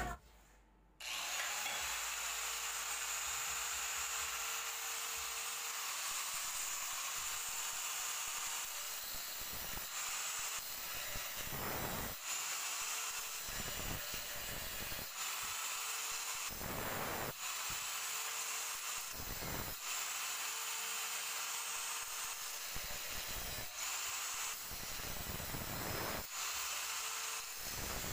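Handheld angle grinder running with its disc against a steel exhaust pipe: a steady grinding hiss over a motor whine, starting about a second in and dipping briefly every few seconds.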